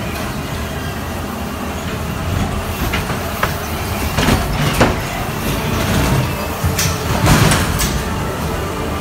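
Dark-ride car rolling along its track with a steady low rumble, with several sharp knocks and clatters in the middle and again near the end.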